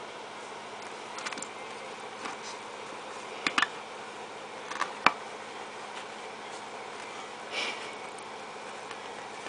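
A small dog pawing and mouthing a giant tennis-ball-style toy ball: a few short scrapes and clicks of claws and teeth on the ball, the sharpest a little after the middle, over a steady low hiss.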